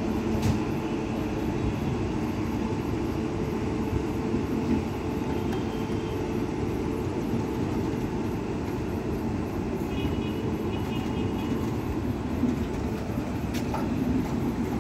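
Indian Railways passenger coaches rolling past at low speed as the train pulls out of the station: a steady running noise of wheels on the rails with a few faint clicks.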